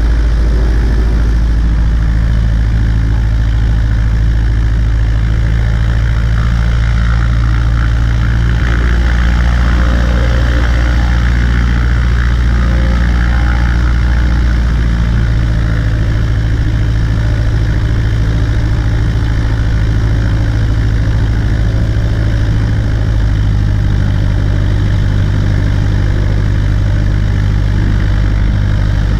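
Cessna 140A's piston engine and propeller running steadily, with small shifts in engine pitch a couple of times.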